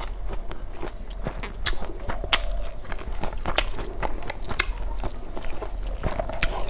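Close-up mukbang eating sounds: a person chewing with wet mouth clicks and smacks, with a few louder sharp bites.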